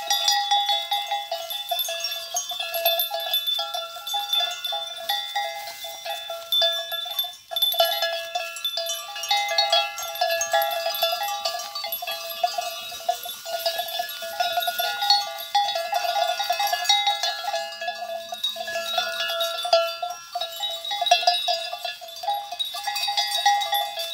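Bells on a herd of goats clanking and jangling continuously and irregularly as the animals move and feed.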